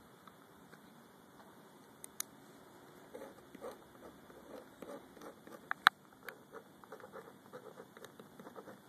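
Gel pen writing on freshly wetted waterproof paper: a run of short, scratchy strokes starting about three seconds in, with a few sharper ticks, the loudest a little before the six-second mark.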